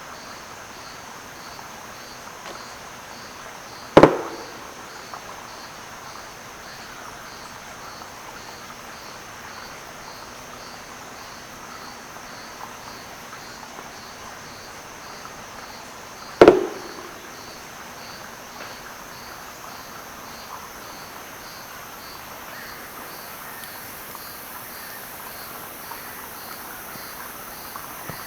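Red-necked Woodpecker (Campephilus rubricollis) giving its double-knock drum on a hollow snag, twice, about twelve seconds apart: each is a loud, sharp knock with a short resonant ring from the hollow wood. A steady, evenly pulsing insect chorus runs underneath.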